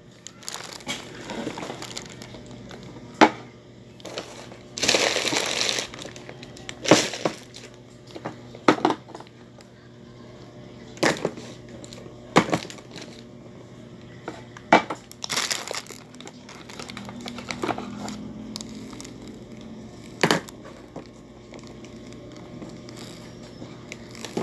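Plastic food packets crinkling and crackling as they are handled and shifted on a crowded table, with about a dozen short sharp crackles and knocks at irregular intervals and a longer crinkle about five seconds in.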